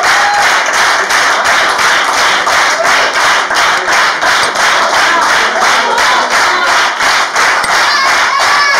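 Audience clapping together in a fast, even rhythm, with a few shouts of approval mixed in.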